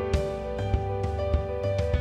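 Background music: a gentle instrumental track with held tones over a steady beat, about one beat every 0.6 seconds.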